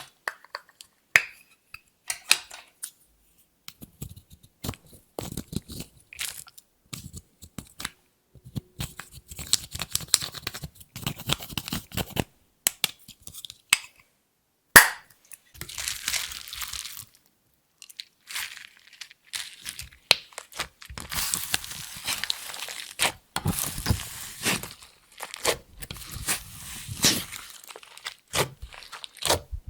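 Clear slime being mixed and squished by hand, giving irregular crackling and popping with short pauses. A single sharp click about fifteen seconds in is the loudest sound.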